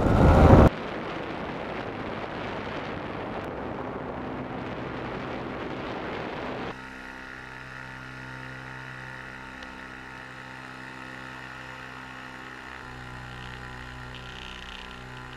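Steady drone of a powered paraglider's engine mixed with wind rushing past; about seven seconds in it changes abruptly to a quieter, smoother humming drone.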